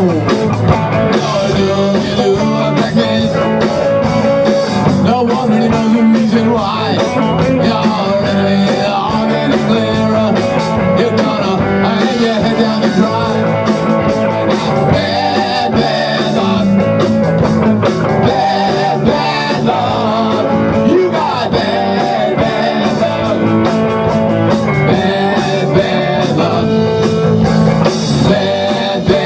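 A rock band playing live: electric guitars, electric bass and a drum kit, with a steady beat and no break.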